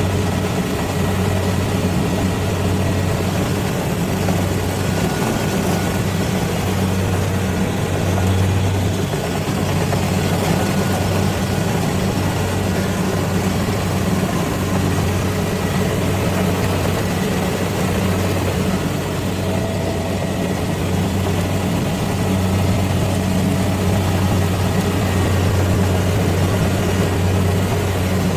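Rice combine harvester engine running steadily, a constant low hum with machinery noise over it.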